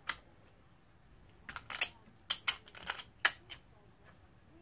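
Metal parts of a motocross rear shock clicking and clinking together by hand as the spring and its seat are fitted, a quick run of sharp clicks about one and a half to three and a half seconds in.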